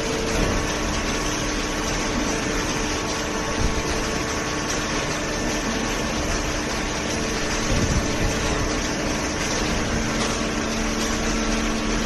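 Hydraulic cardboard baler and its feed conveyor running: a steady machine drone with a few faint steady hums.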